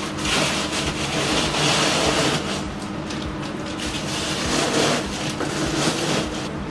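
Sealed plastic packs of meat rustling and bumping as they are handled and stacked into a fridge's freezer compartment, with a steady low hum underneath.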